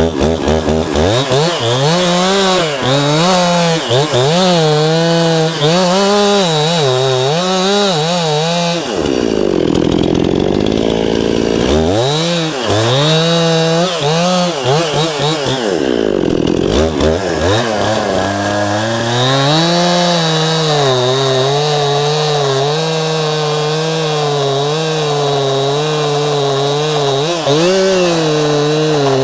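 Two-stroke chainsaw running at high revs while cutting through wood, its pitch wavering as it loads in the cut. The engine drops low twice for a few seconds, about a third of the way in and again just past the middle, then picks back up.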